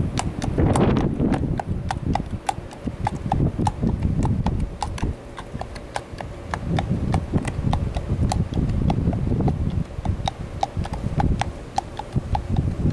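Horse's hooves clip-clopping in a quick, even walk, about four hoofbeats a second, with wind buffeting the microphone.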